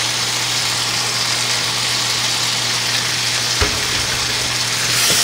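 Eggplant and pork belly stir-fry sizzling steadily in a frying pan, over a low steady hum. A single knock about three and a half seconds in.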